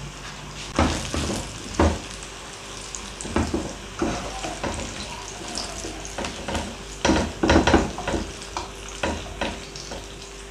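Sliced onions and garlic sizzling in hot oil in a non-stick wok, with scrapes and knocks of a slotted steel spoon and a silicone spatula as the browned onions are lifted out of the oil.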